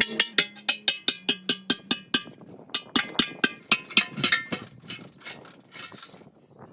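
Sharp metallic clicks with a ringing tone, about five a second, in two quick runs with a short pause between them, then fading to fainter ticks.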